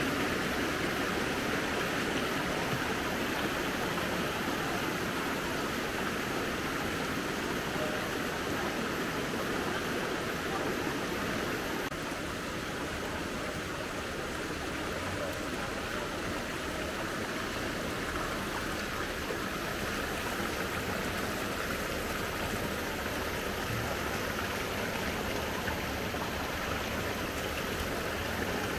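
Steady rush of flowing river water, an even unbroken noise.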